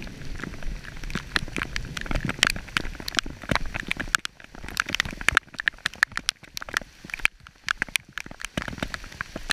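Heavy rain: drops striking the camera as many sharp, irregular taps over the hiss of rainfall.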